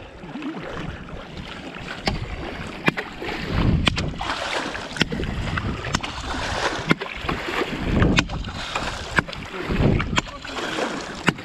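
Shallow water sloshing and splashing as a flounder drag net's pole is pushed through it by someone wading, with frequent sharp clicks throughout.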